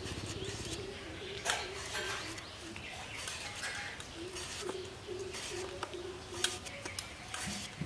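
A green banana's skin is shaved off against a boti blade in short, irregular scraping cuts. A dove coos in the background.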